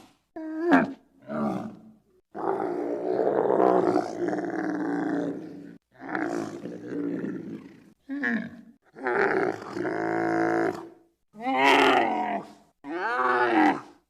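Giraffe calls: a series of about eight pitched, drawn-out calls with gaps between, the pitch bending within each. The longest lasts about three and a half seconds, a few seconds in.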